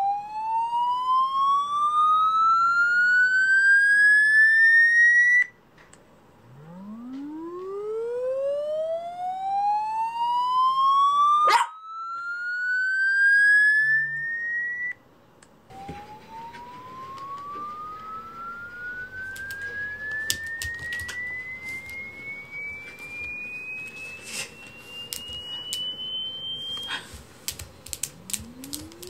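Electronic 'head-tilt sound' for dogs: a tone sweeping steadily upward in pitch, repeated. Two sweeps climb over about five and eight seconds and stop abruptly. A third, thinner sweep rises for about eleven seconds. Light taps and scratches come over the last several seconds as the puppy paws at the phone.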